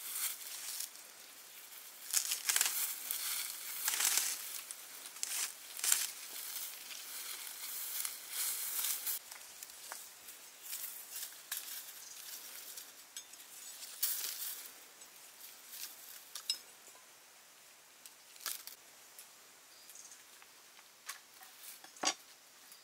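Intermittent rustling and crinkling, louder in the first half and again about two-thirds of the way in, with a few sharp light clicks.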